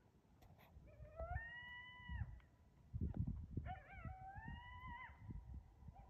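Coyote howling twice, each call rising in pitch and then held for about a second before breaking off; the second begins with a wavering, yipping onset. Low thumps and rumble sit underneath.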